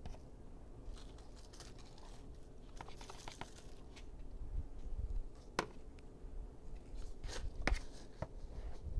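Soft rustling and scattered light clicks of a compost and cow-manure mix being handled from a plastic bucket and sprinkled onto potting soil strewn with dry leaves. Two sharper clicks come about halfway through and again near the end.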